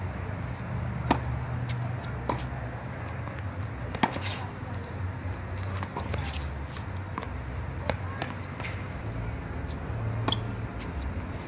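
Tennis ball struck by racket strings in a rally on a hard court: four sharp cracks about three seconds apart, with fainter ticks of the ball bouncing in between. A steady low rumble runs underneath.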